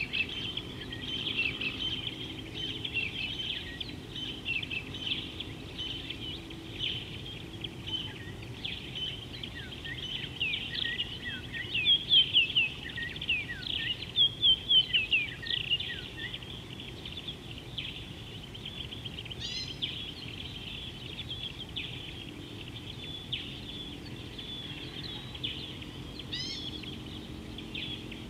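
Several wild birds calling and singing together in a steady high chirping. A run of quick down-swooping notes is loudest about halfway through, and two short rising trills come later. A faint low background noise lies underneath.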